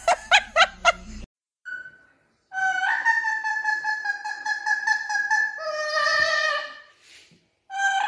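A person laughing briefly at the start, then an amazon parrot singing long, steady held notes, its pitch stepping lower for the last second or so of the song.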